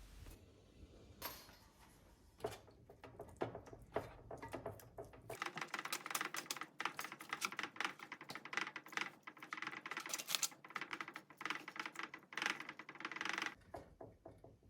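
Quick runs of small clicks and scrapes from a spoon working in a baking tin, basting lamb shanks with their red wine sauce. The clicking is sparse at first, then thick for most of the time, and stops shortly before the end.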